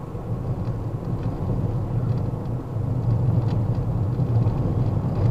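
Steady low engine and road rumble of a vehicle being driven, getting a little louder about three seconds in.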